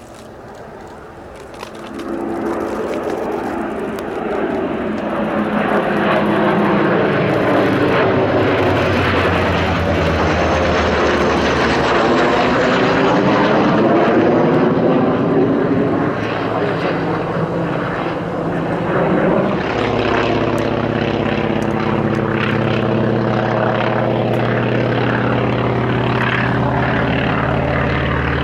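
Radial piston engines of a propeller warbird flying past. The engine sound builds about two seconds in, bends in pitch as the plane passes, then settles into a steady drone.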